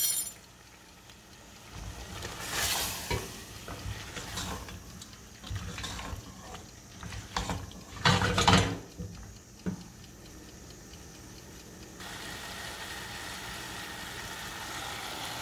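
Marinated chicken pieces frying in butter in a pan, sizzling, while a spoon stirs and scrapes the pan in uneven bursts. The loudest stirring comes about eight seconds in, and a steadier sizzle is heard in the last few seconds.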